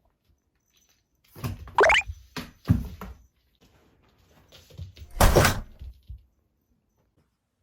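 Comic sound effects dubbed onto a cat's movements, with dead silence between them: a quick swish rising in pitch about a second and a half in, a click and a low thunk around three seconds, and a louder noisy hit at about five and a half seconds.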